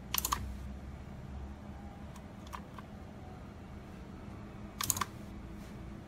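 Relays on a 12 V RC receiver board clicking as the transmitter's sticks are worked: a quick cluster of clicks just after the start and another near the end, with a few fainter single clicks between, over a steady low hum.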